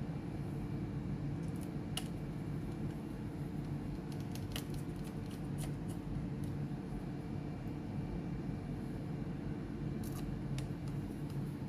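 Scattered light, sharp clicks from small tools and laptop parts being handled, in a few clusters over a steady low background hum.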